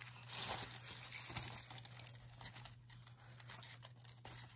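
Tissue paper crinkling and rustling as it is handled, louder in the first half and dying down after, with one sharp click about two seconds in.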